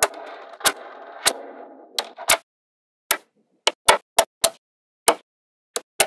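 Small magnetic balls snapping together with about a dozen sharp, irregularly spaced clicks as strips of balls are pressed onto the build. A softer continuous rattle of balls shifting against each other runs under the clicks for the first two seconds or so.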